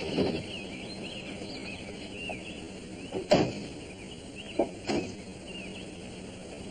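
Outdoor ambience with small birds chirping over and over, and three sharp knocks: the loudest about three seconds in, then two close together about a second and a half later.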